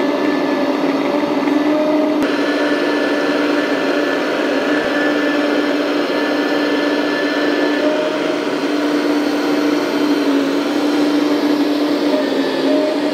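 Hydraulic pump of a 1/14-scale RC Cat 374 excavator, a steady electric-motor whine with a hiss of oil flow, dipping slightly in pitch now and then as the grab and arm take load lifting a model shipping container.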